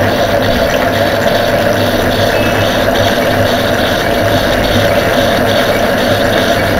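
Drummond lathe running with a brass bar in the chuck. Its drive gives a steady hum with a light, regular beat about two or three times a second.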